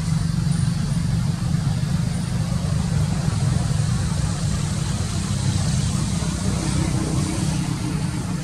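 Steady low engine hum, like a motor vehicle idling, with a faint even hiss above it.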